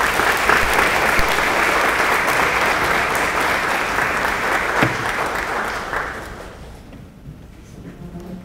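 Audience applauding, then dying away about six to seven seconds in.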